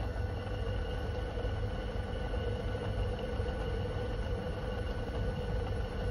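Lathe running steadily with a small drill bit turning in the headstock chuck and being fed slowly into a Stuart 10V model steam engine cylinder to drill a steam passage: an even motor hum with a steady whine over it.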